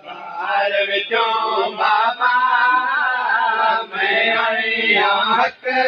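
Men's voices chanting a Punjabi/Saraiki noha (a mourning lament) unaccompanied: a slow, wavering sung refrain.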